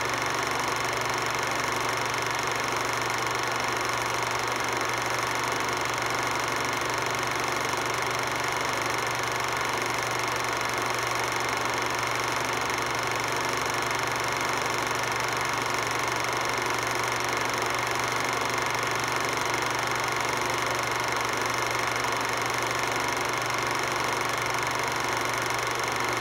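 A steady, unchanging mechanical whir with a constant hum and hiss.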